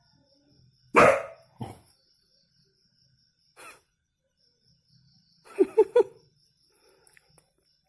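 A dog barks: one sharp bark about a second in, a shorter one just after, then three quick short barks around six seconds in.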